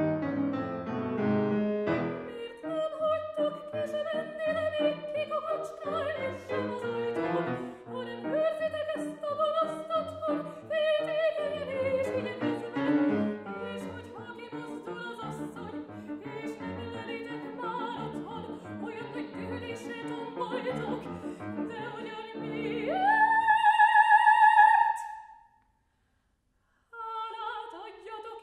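A soprano singing an operatic aria with grand piano accompaniment. The piano plays alone for the first couple of seconds before the voice enters. Near the end she slides up to a loud held high note, then both stop for about a second and start again.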